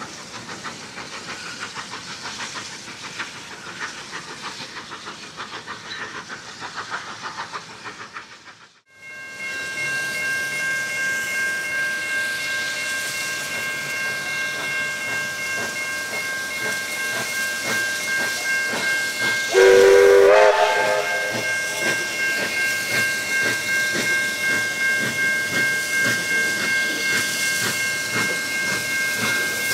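A train's rolling noise, then steady high-pitched ringing from level crossing warning bells. About two-thirds of the way through, steam locomotive 3237 sounds its whistle once for about a second. After that the locomotive's exhaust beats pulse regularly as it works toward the crossing.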